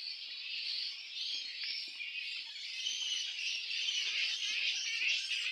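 A flying fox (fruit bat) colony calling in the trees: a dense, continuous high-pitched chatter of many animals that grows a little louder near the end.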